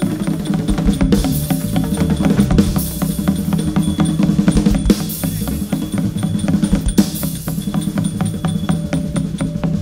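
Fast live percussion music for a Nora dance show: drums and clacking hand percussion beating a rapid, busy rhythm.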